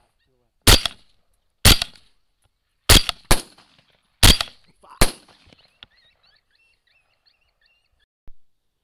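Six rifle shots fired in quick, uneven succession at coyotes, two of them in a close pair, each loud crack followed by a short echo. Faint, high-pitched squeaky chirping trails on for a few seconds after the last shot.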